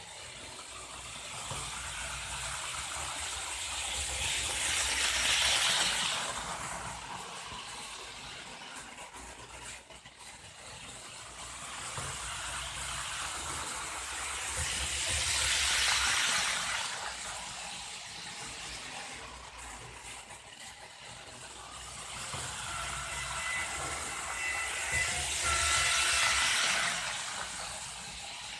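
Märklin ICE 2 H0 model train running laps on its track, its motor and wheels rising to a rolling hiss as it passes close and fading as it goes round, three times about ten seconds apart. A thin whine rides on the last pass.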